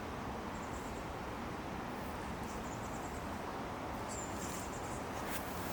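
Thin, high-pitched calls of small songbirds, a few short runs of quick notes, with a longer run about four seconds in, over steady background noise.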